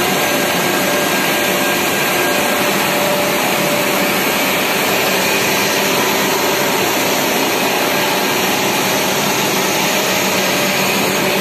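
Wire coil-winding machine running steadily: a continuous whirring machine noise with faint steady motor tones, its pulleys turning and wire running through, working again after repair.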